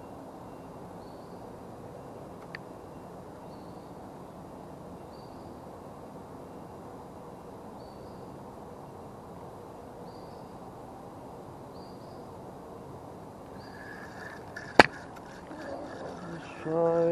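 Steady background hiss with a faint high chirp repeating every second or two. Near the end, a spinning reel is handled close to the microphone, with a light rattling and one sharp click.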